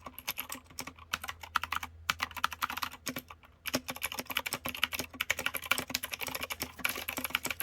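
Typing on a new 65% mechanical keyboard with PBT doubleshot keycaps: rapid, irregular key clacks that are clicky but not too clicky. There is a short pause a little over three seconds in.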